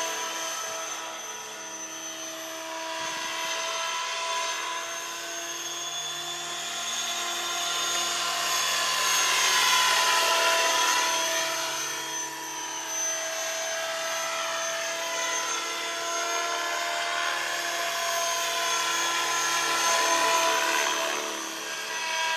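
Radio-controlled model helicopter in flight: a steady high whine from its rotor and drive, swelling louder twice, about ten seconds in and again near the end.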